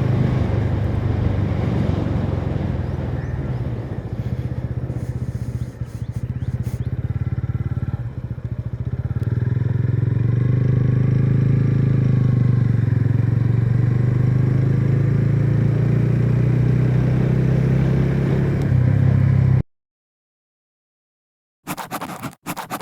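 TVS Ronin's single-cylinder engine running through its stock exhaust while riding. It eases off and wavers for a few seconds, then holds a steady note until it cuts off abruptly near the end. A brief burst of clattering sound follows.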